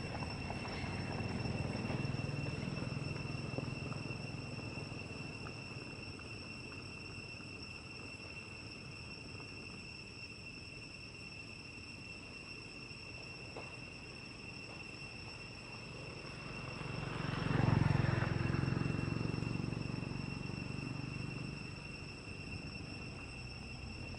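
Insects singing in a steady high tone from the forest. A low, noisy swell rises and fades in the second half, loudest about eighteen seconds in.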